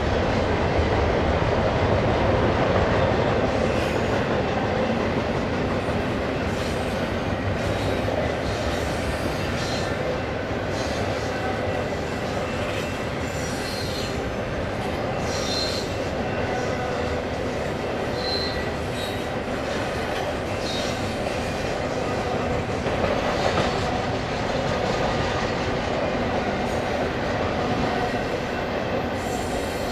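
BNSF freight train rolling past: a steady rumble of cars on the rails, with short high-pitched wheel squeals now and then.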